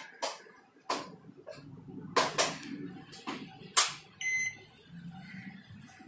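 Sharp clicks and knocks of handling, the loudest just before four seconds in, then one short electronic beep from the Onida microwave oven's control panel about four seconds in.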